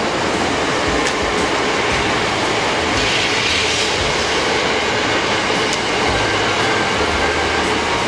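Hankyu Kyoto Line train running past close by: a steady, loud rush of wheels on rail, with a couple of faint clicks.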